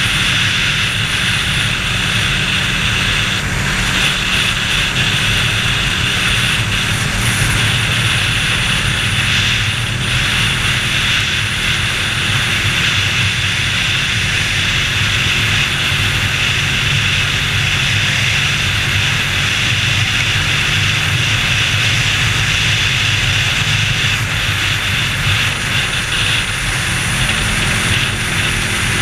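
Ducati 1299 Panigale's L-twin engine running steadily at cruising speed on the road, mixed with wind rush over the on-board microphone.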